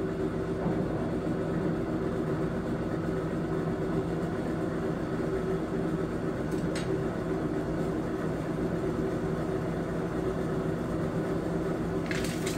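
Electric air blower on a coal forge, running with a steady hum as it drives air into the fire. Near the end a scratchy, rattling noise joins it.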